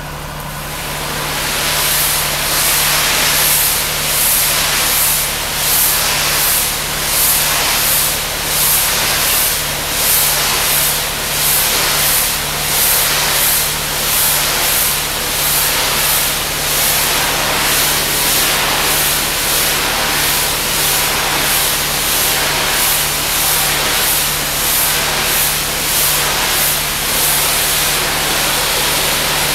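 Pressure washer spraying a hard surface: a loud, steady hiss of water that swells and fades in a regular rhythm a little over once a second as the jet sweeps back and forth, over a steady low hum.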